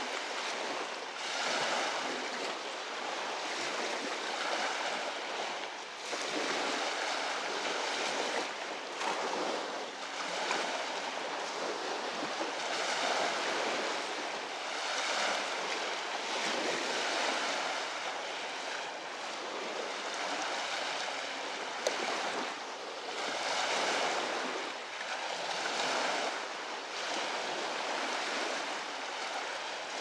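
Small Lake Huron waves washing up on a sand-and-pebble shore, a fresh wash every second or two.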